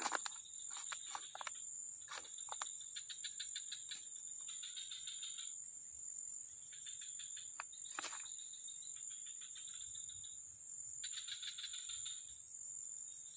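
Outdoor chorus of insects and frogs: a steady, high-pitched insect drone, with bursts of rapid pulsed calls about a second long every couple of seconds. A few sharp clicks sound near the start and about eight seconds in.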